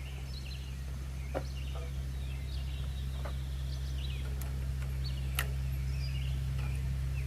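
Small birds chirping over a steady low mechanical hum, with a few sharp clicks or knocks, the clearest about five seconds in.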